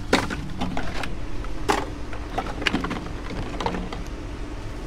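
Scattered knocks and clatters of trash being shifted in a dumpster, about one a second, over a steady low hum.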